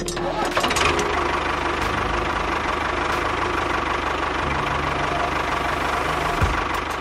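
A motor running steadily as the toy tractor pulls its loaded trolley, rising over the first second and then holding, with a faint whine over a low hum.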